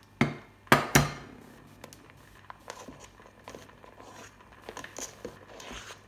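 A plastic slotted spoon skims foam off snails boiling in a steel pot. It gives two sharp knocks in the first second, then soft crackling and small clicks as it works through the foam, a little louder near the end.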